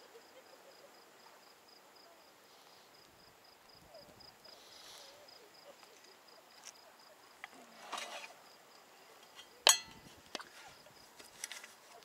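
An insect chirping faintly in an even, rapid pulse, with a few sharp clicks and knocks; the loudest is a single sharp click a little before ten seconds in, and a brief rustle comes about two seconds earlier.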